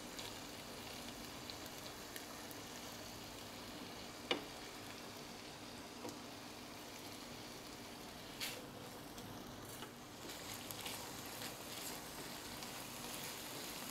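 Chicken and chopped vegetables frying in oil in a nonstick pan: a faint, steady sizzle with a couple of short, light knocks. It grows a little busier near the end as a spatula stirs the pan.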